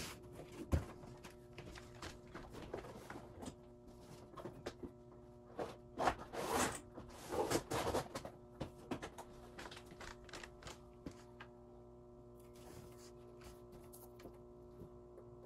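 Steady electrical hum of several tones from a mercury vapor lamp fixture's ballast, running the 175 W bulb as it warms up. Scattered clicks and knocks over it: a sharp knock under a second in and a cluster of louder ones about six to eight seconds in.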